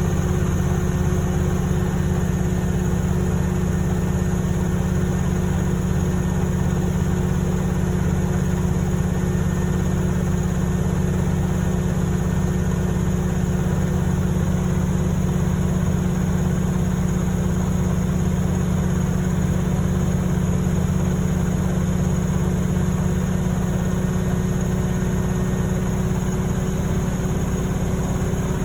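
Beko washing machine giving off a steady, unbroken low hum while it fails to drain.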